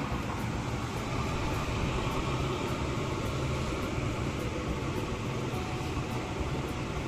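Steady rushing hum of floor-standing air-conditioning units, even throughout with no single event standing out.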